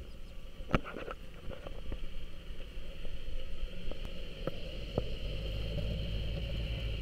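Land Rover Ninety's engine running at low revs as it crawls over rough off-road ground, growing louder about three seconds in, with a few light knocks.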